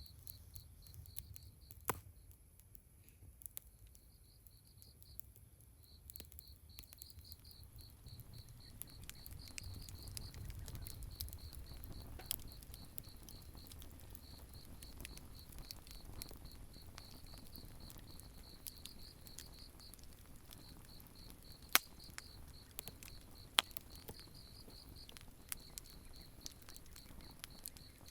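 Crickets chirping in a steady run of pulsed high trills, with a few sharp pops and crackles from a campfire, the loudest a little before halfway and near the two-thirds mark.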